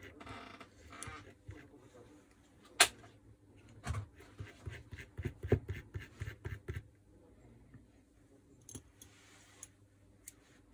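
Plastic and metal parts of a disassembled Makita 4329 jigsaw being handled: scattered clicks and knocks, with one sharp click about three seconds in and a run of knocks a second later. Fainter clicks of metal parts come near the end.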